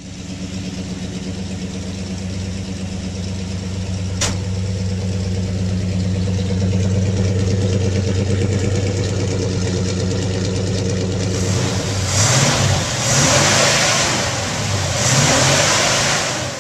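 1965 Chevy C-10's 350 V8 with dual glasspack exhaust, running at a steady idle, with a single sharp click about four seconds in. Near the end it is revved three times in quick succession.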